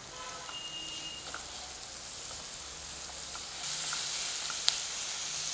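Chopped onions and green chillies sizzling in hot oil in a nonstick kadhai as they are fried with salt and turmeric, a silicone spatula stirring them with a few light taps. The sizzle grows louder about two-thirds of the way in.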